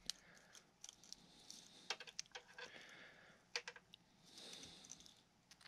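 Faint handling noise: a few light plastic clicks about 2 and 3.5 seconds in, then soft rustling, as a plastic connector lock is fitted over the wire-lead connectors.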